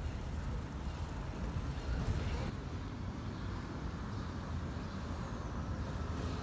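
Steady low rumbling outdoor background noise, with no distinct events; the higher hiss drops away about two and a half seconds in.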